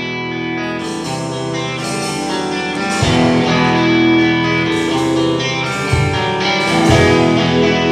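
A live rock band starting a song: electric guitar plays sustained chords, and drums come in about three seconds in, making it louder.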